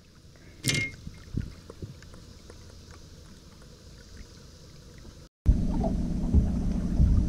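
Quiet open-water sound with a short sharp knock under a second in. After an abrupt cut, a boat's outboard motor runs steadily with wind rushing on the microphone, much louder.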